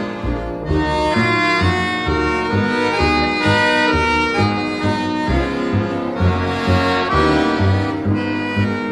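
Accordion playing an instrumental passage: a melody of held notes over a steady, evenly repeating bass beat.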